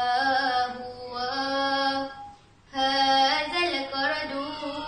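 A young girl singing nazam, a chanted Malay-Arabic verse in praise of the Quran, as a solo voice. She holds long, slowly bending notes, with a short breath pause about halfway through before the next phrase.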